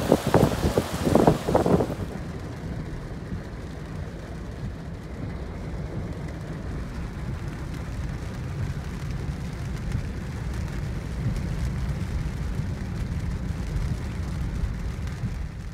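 Gusty wind and heavy rain buffeting the microphone for about two seconds. Then comes the steady low rumble inside a car's cabin as it drives through a flooded street in the downpour.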